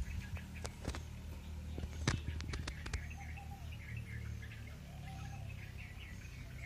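Small birds chirping in the background, with several sharp clicks in the first three seconds over a steady low rumble.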